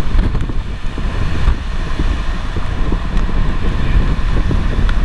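Storm winds and rain buffeting a moving armoured storm-chase vehicle, heard from inside the cabin as a loud, steady deep rushing over its engine and road noise, with a few light ticks.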